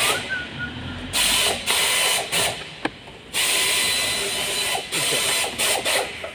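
Repeated bursts of rasping, ratchet-like mechanical noise, each lasting up to about a second and a half, with a few sharp clicks between them, from hands-on work on a car's fuel pump assembly.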